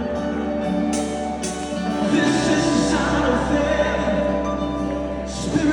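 Worship music with singing over held chords, growing fuller about two seconds in, with cymbal swells near the start and again near the end.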